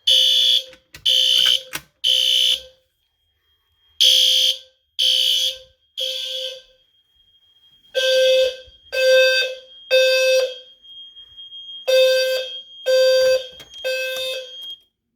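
Fire alarm horns sounding the temporal-three evacuation pattern: three half-second blasts, a pause, then three again, four times over. A low-pitched tone near 500 Hz, typical of a System Sensor P2RH-LF 520 Hz low-frequency sounder, sounds together with a shriller horn tone. A faint steady high beep carries on between the groups in the second half.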